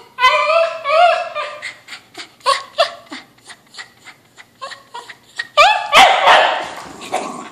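Whippet-mix dog whining and yipping in high cries that glide up and down, begging for a balloon it can't reach. Short yelps follow, then louder, harsher barks about five and a half seconds in.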